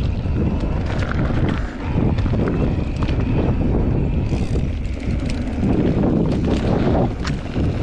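Wind buffeting the microphone of a camera on a moving bicycle, a loud rumbling rush, with scattered knocks and rattles from the ride.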